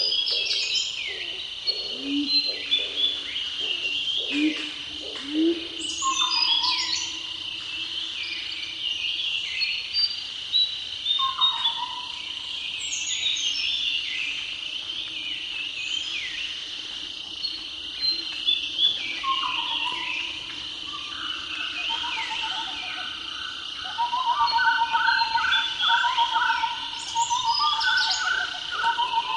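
Several wild birds chirping and whistling over a steady high insect drone, with a few low calls in the first several seconds. A quick run of rapidly repeated chirps near the end is the loudest part.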